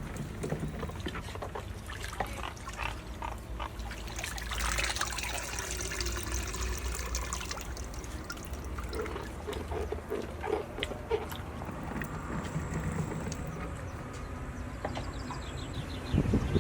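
Liquid pouring and trickling, with small clicks and knocks.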